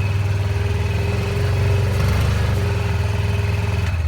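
Four-wheeler engine running steadily as the machine drives along, with a thin steady whine over it that cuts off just before the end.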